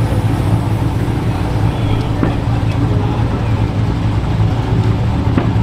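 Car engine idling steadily with a low, even hum, and two faint clicks about two seconds apart in the second half.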